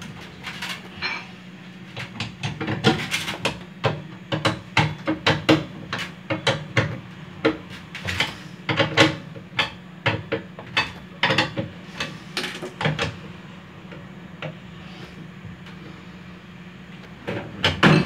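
Hand tools clicking and knocking against the motor bracket of a washing machine as the motor mount is tightened to tension the drive belt. The taps are irregular, often several a second, and thin out about thirteen seconds in.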